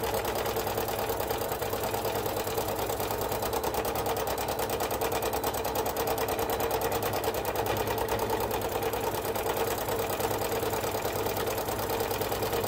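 Sewing machine running steadily at a fast, even speed, its needle stitching continuously as the fabric is guided by hand to sew a line of free-motion thread painting.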